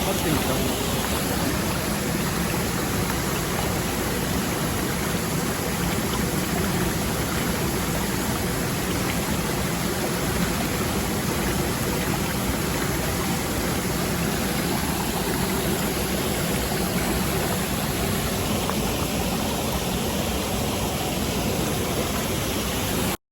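Steady rush of a mountain stream's flowing water, cutting off suddenly at the very end.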